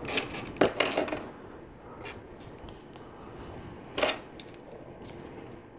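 Plastic LEGO Technic pieces being handled and pressed together: a few sharp clicks and rattles, with a cluster about a second in and one louder click about four seconds in.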